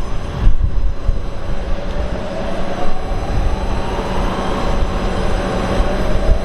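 A distant siren wailing, its pitch climbing slowly over several seconds, over a steady low rumble of generators.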